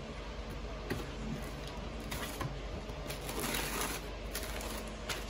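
Cardboard shoebox being opened with a light click about a second in, then tissue paper crinkling and rustling as it is folded back, loudest near the middle. A steady low hum sits underneath.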